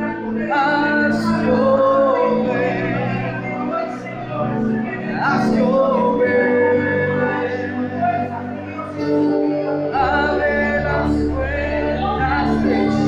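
Spanish-language worship song: singing over held keyboard and bass chords, with the bass note changing about six seconds in and again about ten seconds in.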